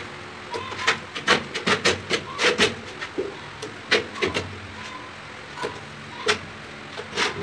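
Irregular sharp clicks and knocks of ceramic tile pieces and a hand tool being handled and set down on a concrete kitchen slab, several in quick runs with short pauses between.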